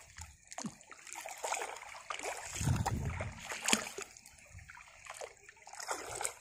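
Shallow floodwater splashing and sloshing as a person wades and works a fish net by hand. It comes as irregular small splashes, with a louder stretch of churning about two and a half seconds in.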